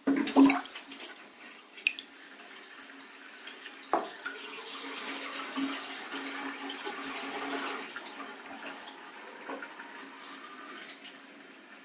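Bathtub water draining down the plughole: a steady gurgling flow with a low humming tone, after a loud splash at the very start and a few sharp clicks of drips.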